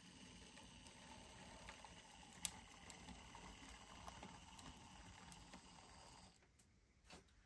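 Faint steady whir of a model railway locomotive's motor and gears as its chassis creeps along at slow shunting speed, with a few light clicks along the way. The whir stops about six seconds in.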